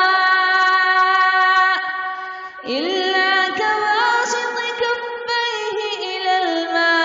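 A man reciting the Quran in a slow, melodic tajwid style, holding long drawn-out notes. About two and a half seconds in the voice drops briefly for a breath, then rises into another long held phrase.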